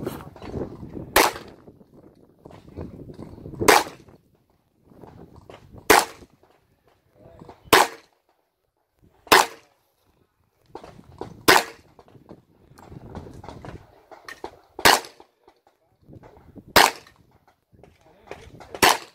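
Handgun shots fired one at a time by a competitor working through a practical-shooting stage: about nine sharp reports, a second and a half to three seconds apart, with fainter noise between them.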